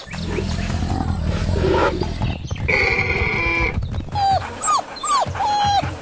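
An animal calling: a low rumbling growl, then a held whine about halfway through, then a run of short, falling, dog-like whimpers in the last two seconds.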